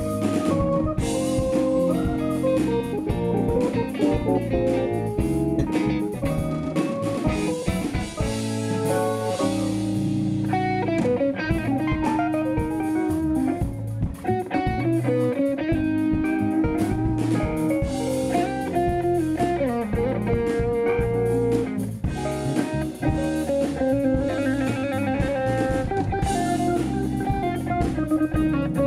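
Live instrumental jazz-funk band playing: electric guitar over bass guitar, drum kit and keyboard.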